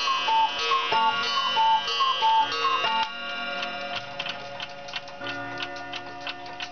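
Kieninger wall clock chiming, a quick run of struck ringing notes, which stops about three seconds in. After that the movement ticks steadily while the last notes ring on and fade.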